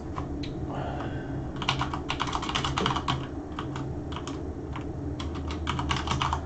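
Typing on a computer keyboard: a quick run of key clicks about a second and a half in, then a shorter run near the end.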